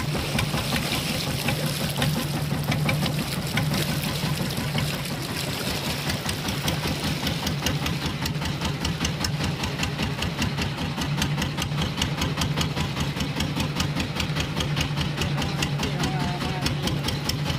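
Fishing boat's engine running steadily with a fast, even beat.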